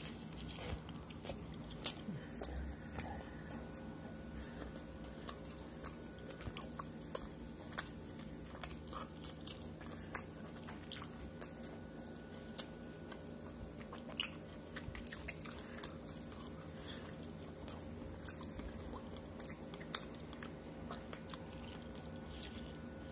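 Close-up chewing and biting of street tacos on corn tortillas: wet mouth sounds with scattered small sharp clicks. A steady low hum runs underneath.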